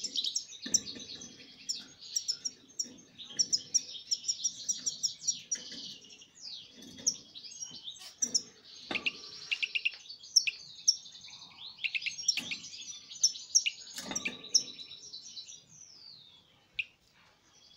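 Caged European goldfinch singing: a long, fast run of twittering chirps, trills and sliding notes with short pauses, thinning out near the end.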